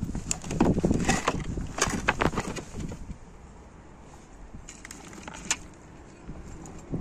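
Hands rummaging through a cardboard box of broken plastic parts and cables, items clicking and rattling against each other. The rattling is busy for the first three seconds, then only a few scattered clicks follow.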